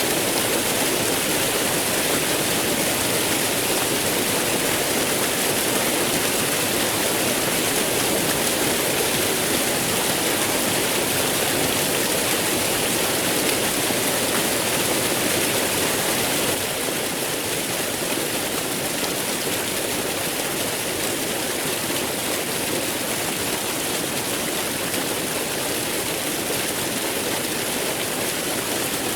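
Waterfall flowing, a steady rush of falling water that drops slightly in level a little past halfway.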